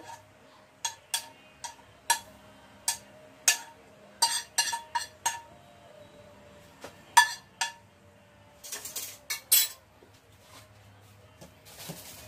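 Metal kitchenware clinking: a bowl and utensils knocking against each other and the plate while garnish is added. There are about a dozen sharp, irregular clinks, the loudest about seven seconds in, with a quick run of them around nine seconds.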